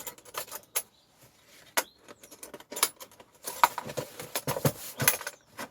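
Plastic carry case's clip latches being unsnapped and the case handled: a few separate sharp clicks, then a denser run of clicking and clatter from about three and a half seconds in.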